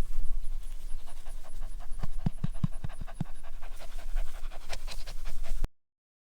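Livestock guardian dog puppy panting steadily, with a quick run of louder breaths a little after two seconds in; the sound cuts off abruptly near the end.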